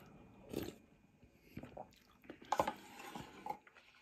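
Eating noises from a mouthful of egg noodles: a few short bursts of chewing, the longest near the end.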